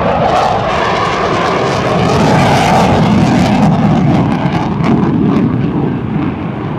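F-15C Eagle's twin Pratt & Whitney F100 turbofans roaring as the jet pulls through a tight turn overhead. The roar is loudest around the middle, with sharp crackles running through it, and eases slightly near the end.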